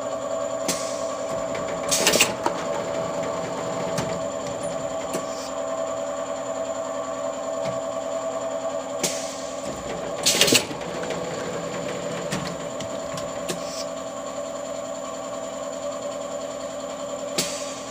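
Plastic-bottle extrusion blow moulding machine running with a steady mechanical hum. Twice, about eight seconds apart, a short loud hissing burst sounds in step with the mould cycle.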